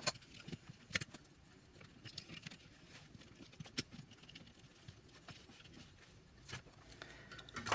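Faint, sparse clicks and light rustling of small parts and tools being handled at an electronics workbench, with a few sharper ticks spread through an otherwise quiet stretch.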